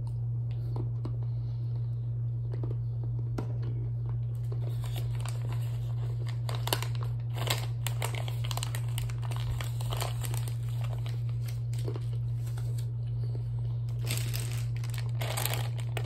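Plastic Star Snacks mixed-nut bag crinkling as it is handled and reached into, in bursts that are busiest in the middle and again near the end. A steady low hum runs underneath.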